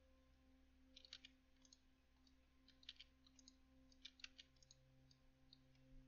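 Near silence over a steady faint low hum, broken by a few faint computer mouse clicks in small clusters, about one, three and four seconds in.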